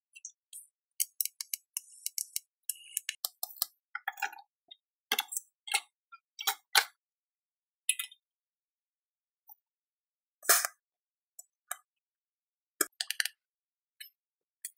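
Irregular metallic clicks, clinks and knocks with silent gaps between them, the loudest a longer knock about ten and a half seconds in: steel parts and tools being handled on a workbench.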